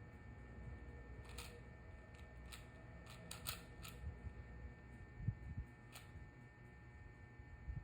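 A 4x4 Rubik's cube being turned by hand during a solve, giving a few faint, scattered plastic clicks over a low background hum.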